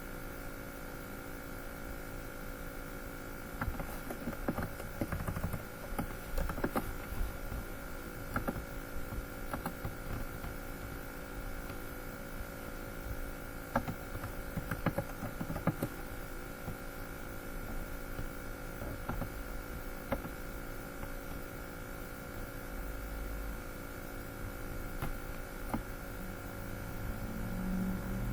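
A steady hum of several fixed tones, with scattered light clicks and taps, most of them in the first half.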